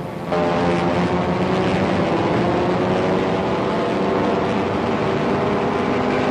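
Fighter aircraft flying over, their engines coming in suddenly about a third of a second in and running loud and steady.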